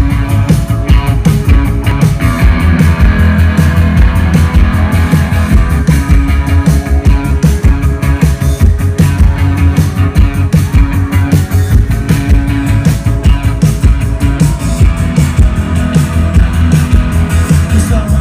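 Rock band playing live through a concert sound system, with a steady drum beat, bass and electric guitar.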